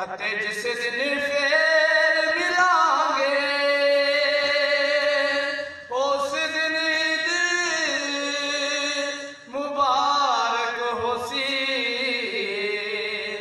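A man singing unaccompanied into a microphone in a chanting style, holding long melodic notes that glide up and down, with two short breaths between phrases.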